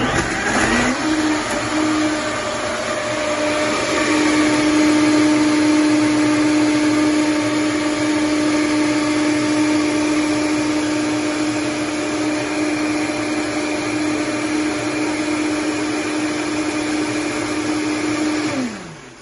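Red Vitamix E310 blender blending a jug of vegetables, fruit, almond milk and ice into a smoothie. The motor spins up within the first second, runs at a steady pitch for about eighteen seconds, then winds down as it is switched off near the end.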